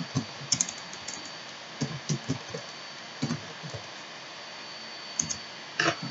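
Computer keyboard keys typed irregularly in small clusters of clicks. A faint steady hiss and a thin high whine run underneath.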